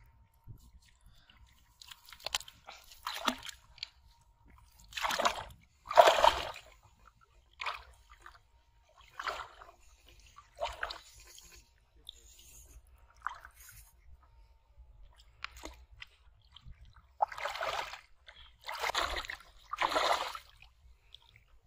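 Legs wading through shallow river water, a series of splashing, sloshing steps. The loudest splash comes about six seconds in, and three come close together near the end.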